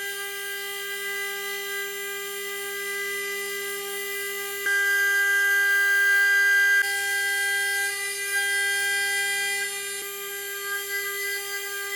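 High-speed CNC spindle milling Inconel 718 with a 4 mm ceramic end mill: a steady, high-pitched whine with many overtones. For about two seconds near the middle it turns louder and higher in pitch, then drops back, with a few faint ticks.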